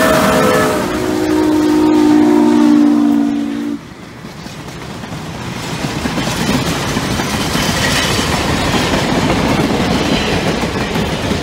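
Steam locomotive whistles blowing chords, stepping down to a lower held chord about a second in and cutting off sharply about four seconds in. After that, freight cars of a steam-hauled train roll past, their wheels clacking over rail joints over a rumble that builds and then holds.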